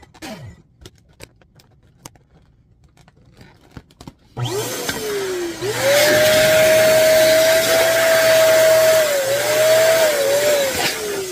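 Electric balloon pump inflating a clear bubble balloon. A few faint handling clicks come first, then about four seconds in the motor starts and runs with a steady whine, dipping in pitch a few times. Near the end the whine falls as the motor winds down.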